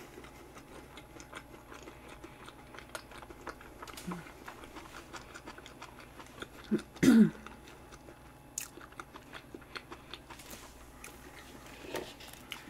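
Close-up mouth sounds of someone chewing soft chocolate cream cake: many small, wet clicks and smacks. About seven seconds in comes one brief, louder sound from the voice.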